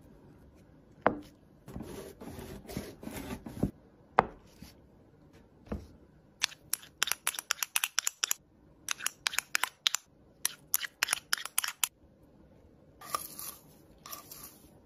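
Close-up food-preparation handling sounds: soft rubbing and a few knocks, then several seconds of rapid sharp clicks in quick clusters, and a short rustle near the end.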